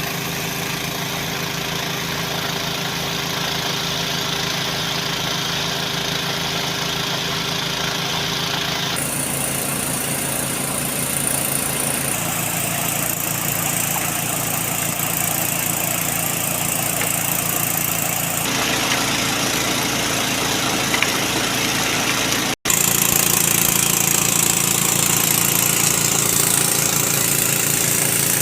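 Small Robin air-cooled petrol engine running steadily at a constant speed, powering river gold-prospecting equipment. Its tone changes abruptly a few times, with one very brief dropout about two-thirds of the way in.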